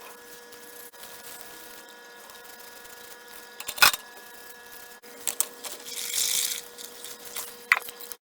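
Metal tools and parts being handled on a workbench: a few sharp clicks and clinks, the loudest about four seconds in, and a brief scraping rustle around six seconds, over a steady faint hum.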